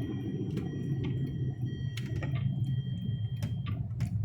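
Steady low road and engine rumble inside a moving car's cabin, with sharp regular clicks about twice a second.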